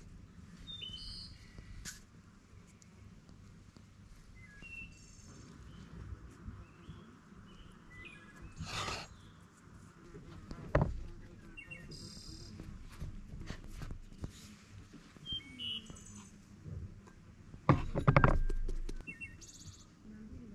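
Birds chirping now and then over faint outdoor background, with a sharp knock about eleven seconds in and a louder clatter near the end.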